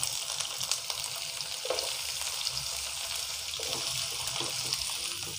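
Diced onion frying in hot oil with mustard seeds and cumin in a non-stick pan: a steady sizzling hiss with small faint ticks.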